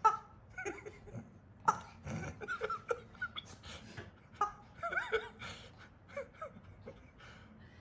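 Soft, held-back human giggling in short breathy bursts, with a few sharp clicks and knocks.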